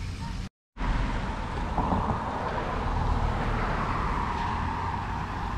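Car passing on the street, its tyre and road noise swelling through the middle and fading, over a steady low outdoor rumble. The sound drops out completely for a moment about half a second in.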